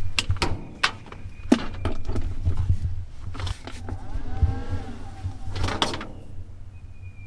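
Plastic clicks and knocks of cables being plugged into an Xbox 360 console and a Jackery portable power station, thickest in the first two seconds with a louder knock near the end. A short wavering tone rises and falls about four seconds in.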